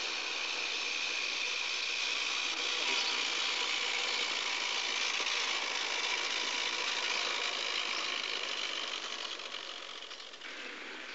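Clockwork gauge 1 model locomotive running on its track: a steady whirr from its wound spring motor with the wheels rattling on the rails, growing fainter near the end as the train moves away.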